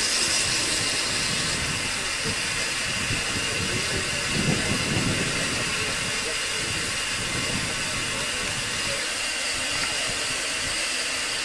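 Narrow-gauge steam tank locomotive standing with steam escaping round its wheels and side, giving a steady hiss.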